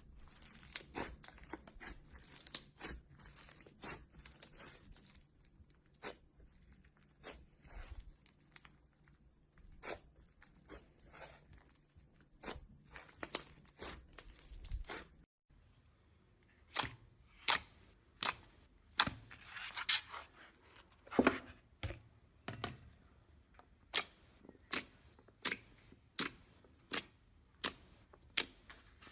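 Slime being squeezed and pulled apart by hand, giving crisp crackling, popping clicks and tearing sounds. About halfway through a second clip begins, with louder, sharper clicks coming one or two a second.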